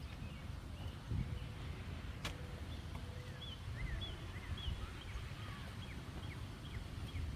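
Faint bird chirps, a series of short high notes from about three seconds in, over a low outdoor rumble, with a single click about two seconds in.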